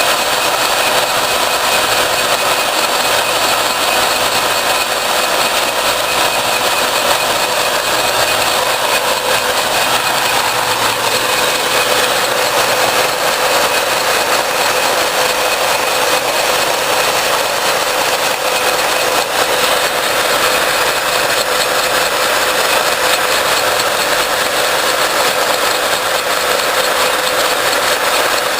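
Portable line-boring bar driven by a 3/4-inch electric drill power unit, running steadily with a constant whine as the cutter bores through the steel pin hole.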